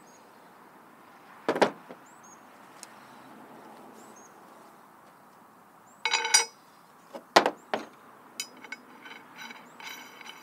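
Steel tools and hydraulic cylinder parts being handled on a truck tailgate: a couple of sharp knocks and a metal clink that rings briefly, then a run of small light metallic clinks near the end.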